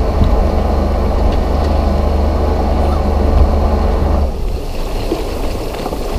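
Sailing yacht's inboard diesel engine running slowly, a steady low rumble heard from near the helm. About four seconds in the rumble drops away, leaving a quieter wash of water and wind.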